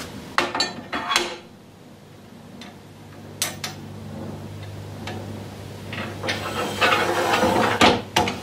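Metal clanks and knocks from cast-iron lathe parts (tool-rest banjo and post) being handled and fitted. Near the end come a few seconds of scraping and clatter as a part is slid over the lathe bed.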